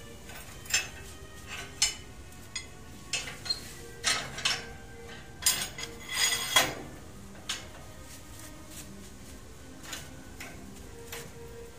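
Steel rebar and a hand bending bar clinking and knocking against a metal bending jig as stirrups are bent by hand: irregular sharp metallic clanks, thickest and loudest about four to seven seconds in.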